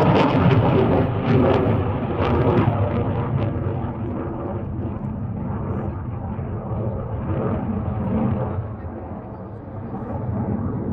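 Jet noise of an F-16 fighter flying its display overhead: loud at first, then fading and dulling over the first few seconds to a steadier, quieter rumble as it draws away.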